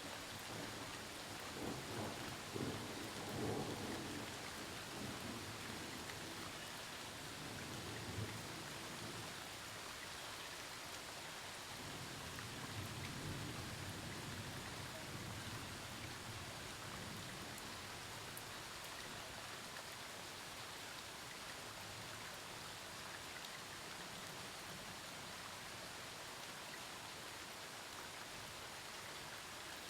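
Steady rain falling during a thunderstorm, with rolls of thunder rumbling low in the first few seconds and again about twelve seconds in.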